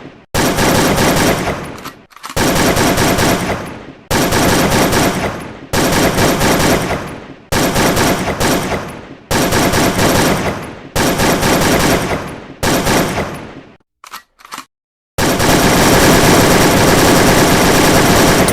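Automatic gunfire: eight short bursts of rapid fire about every two seconds, each trailing off, then a few brief clicks, then one long sustained burst of about three seconds near the end.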